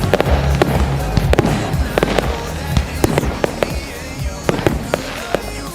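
Fireworks finale: many sharp bangs and cracks going off in quick succession, several a second, with music playing underneath.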